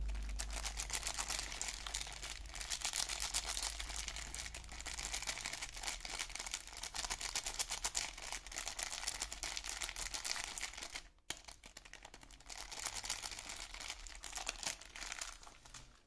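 Soap packaging being handled and unwrapped: dense crinkling with rapid fine crackles, breaking off briefly about eleven seconds in, then crinkling again.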